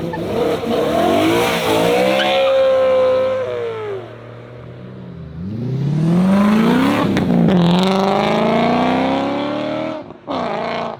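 Car engine revving hard, its pitch climbing and then falling, twice over: the first pull in the opening four seconds, the second from about five and a half seconds. A short, separate burst of engine sound comes near the end.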